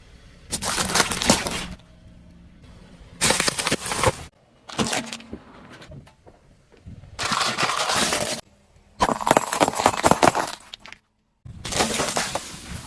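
Objects being crushed under a car tyre: about six separate bursts of crunching and cracking, each starting and stopping abruptly.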